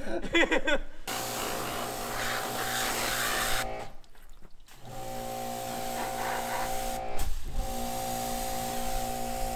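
Pressure washer running as a dirt bike is washed: a steady motor hum under the hiss of the spray. It cuts out briefly twice, about four seconds in and again about seven seconds in.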